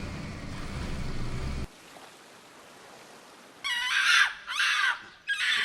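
Abruptly edited collage of sounds: a low rumbling noise cuts off suddenly under two seconds in. Near the end come three loud, harsh calls with bending pitch.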